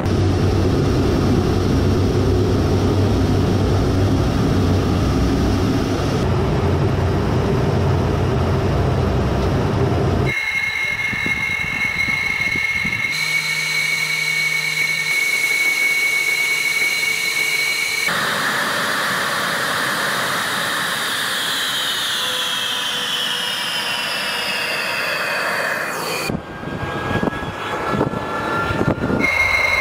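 Su-34 fighter-bomber's twin turbofan jet engines in several cut-together stretches: a heavy low rumble for about the first ten seconds, then a steady high turbine whine, then whines falling in pitch, and a rising whine near the end.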